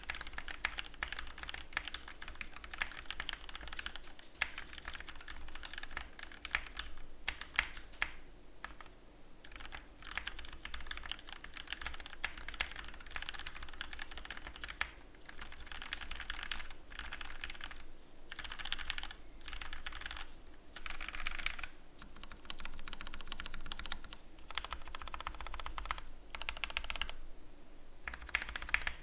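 Typing on an Epomaker EP84 mechanical keyboard with lubed Gateron Milky Yellow linear switches, foam-dampened case and lubed stabilizers. It is fast, continuous keystroke clicking in long runs, broken by brief pauses several times.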